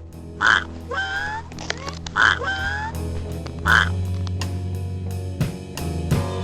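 Several short cartoon duck quacks, about five in the first four seconds, over a simple electronic tune with a steady bass note and a ticking beat.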